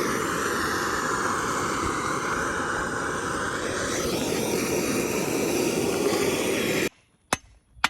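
A gas torch burning with a loud, steady hiss as it heats the steel subframe around a rubber bushing, so that the metal expands and the bushing can be driven out. The hiss cuts off abruptly near the end, and a sharp hammer strike follows.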